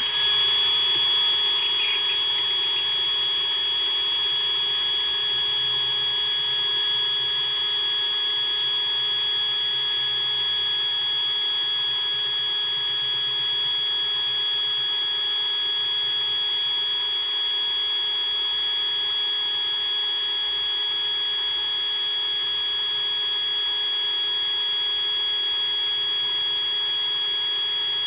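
Electric drill running steadily at a constant speed with a high, even whine, a small bit boring out a seized bolt stuck in an aluminum subframe.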